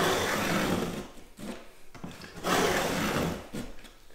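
Carbide snap-off utility knife blade drawn along an aluminium straight edge, scoring a sheet of hardboard: two long scratching strokes of about a second each. These are repeated passes that deepen the cut groove.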